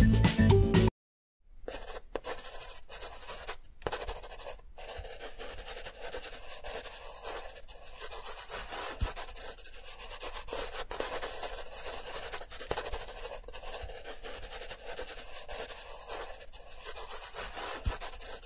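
Black felt-tip marker rubbing and scratching across paper as outlines are traced over, a continuous scratchy hiss. Music plays briefly and cuts off about a second in.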